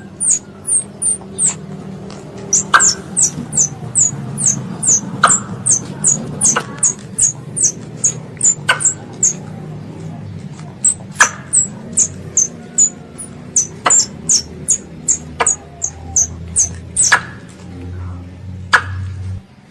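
Squirrel giving rapid high-pitched chirps: short downward-sweeping notes in runs of about three or four a second, with an occasional sharper, louder chip, over a steady low hum. The uploader presents it as a young squirrel calling its mother.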